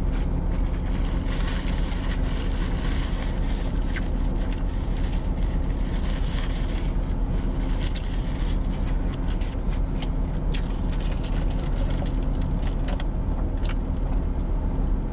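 A car engine idling steadily, heard from inside the cabin as a constant low hum, with scattered short clicks and crackles from eating and handling food.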